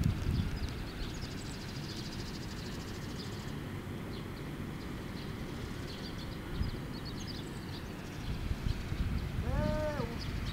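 Wind buffeting the microphone: an uneven low rumble, with scattered faint high chirps. Near the end comes one short call that rises and then falls in pitch.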